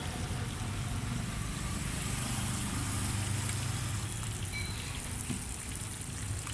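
Low engine rumble of passing street traffic, swelling for a couple of seconds around the middle, over the steady hiss of bananas frying in hot oil.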